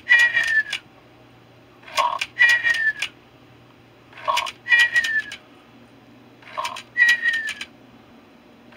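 Squawkers McCaw animatronic parrot toy playing its sleep sound through its speaker: a short low burst followed by a slightly falling whistle, repeated four times about every two and a half seconds, with sharp clicks.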